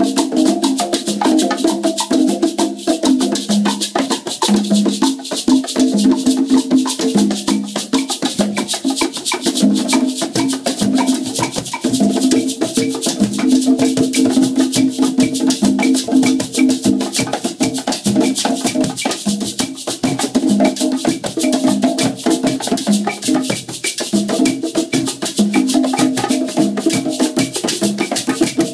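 Afro-Cuban rumba played on several conga drums, open and slapped tones interlocking in a steady groove, with a fast high rattle and clicks layered on top.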